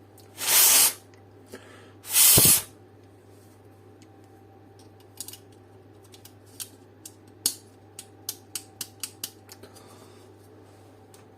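Two short bursts of hissing spray, each about half a second long and a second and a half apart, then a run of small, sharp clicks as the dome light's parts are handled.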